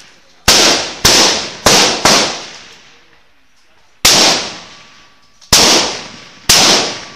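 Rifle shots from benchrest rifles along the firing line: seven sharp cracks at irregular intervals, four close together in the first two seconds and three more later, each dying away over about half a second.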